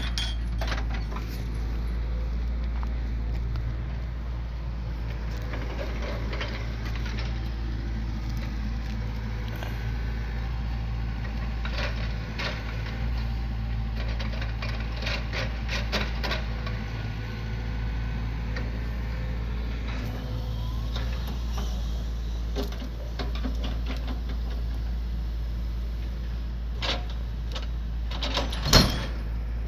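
Excavator engine running steadily as its log grapple works, with scattered knocks and clicks of logs shifting and one loud thump near the end as a log is set down on the truck's load.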